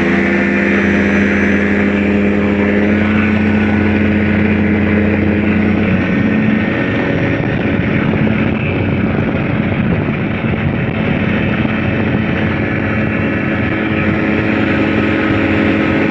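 Ultralight weight-shift trike's engine and propeller running at full throttle for the takeoff run, a steady, loud engine note. From about six seconds in, rushing wind on the microphone grows over it as the trike gathers speed and lifts off.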